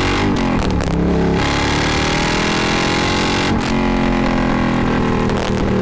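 Triumph Thruxton R's 1200 cc parallel-twin engine, breathing through loud open Meerkat racing mufflers, accelerating hard. The pitch climbs, drops briefly at an upshift about half a second in and again about three and a half seconds in, then climbs again.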